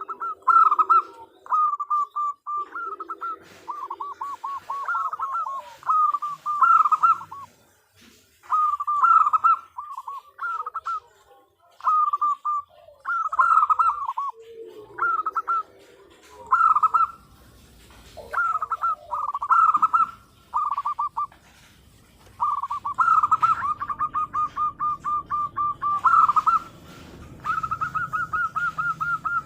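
Zebra dove (perkutut) calling: short repeated phrases of quick coo notes, with longer runs of rapid, even notes in the second half and a fainter, lower sound underneath at times. It is a female's call, used as a lure to draw a male into answering.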